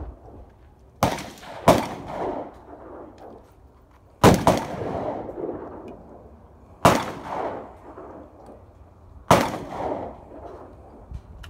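Shotgun shots at clay targets: six reports, two quick pairs and then two single shots a few seconds apart, each echoing.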